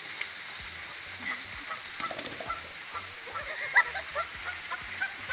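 Canada goose honking over and over in short calls over a steady background hiss, with one sharp, louder call about two-thirds of the way through.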